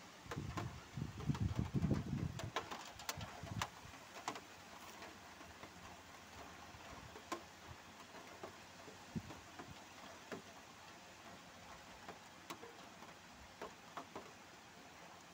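Steady rain with scattered drops ticking close by, irregular single clicks over a faint hiss. For the first three seconds or so a loud, uneven low rumble sits under the rain.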